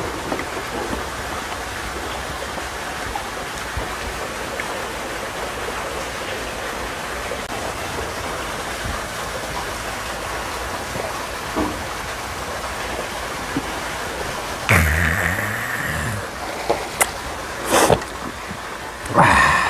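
Steady rushing of water from a small rock-garden waterfall, an even hiss. Near the end a few short, louder sounds break through it.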